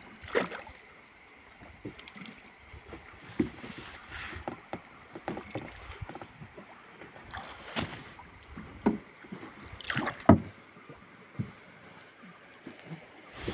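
A small boat being poled along a river: scattered knocks and splashes as the long pole strikes the water and the hull, with water moving against the boat between strokes. The sharpest knocks come about eight and ten seconds in.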